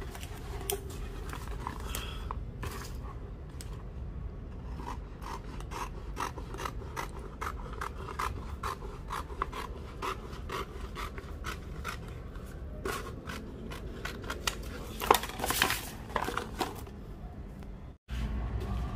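Scissors cutting through a sheet of white self-adhesive vinyl film, a steady run of short snips with the film rubbing and scraping on the floor, louder in a burst about three-quarters of the way through, then stopping abruptly near the end.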